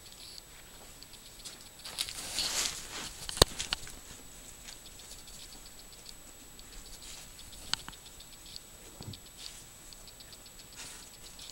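An elephant moving close beside the tent: soft rustling and light pattering. A louder rustle comes about two seconds in, and a single sharp click follows about a second later.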